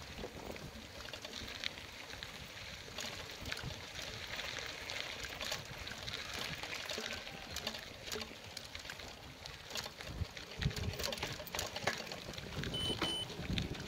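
Bicycle rolling along a concrete road: steady tyre and wind noise on the handlebar-mounted microphone, with small rattles and clicks. The wind buffeting gets heavier near the end.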